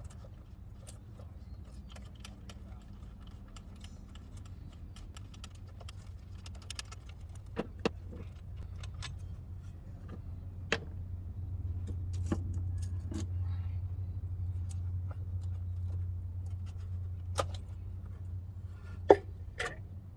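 Scattered metallic clinks and clicks of tools and parts being handled during engine work, a few sharper ones standing out, over a steady low hum that grows louder for a few seconds in the middle.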